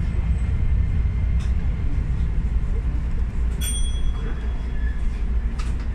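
Keisei commuter train running along the track, heard from inside the driver's cab: a steady low rumble of motors and wheels. A short high beep sounds about three and a half seconds in, along with a few faint clicks.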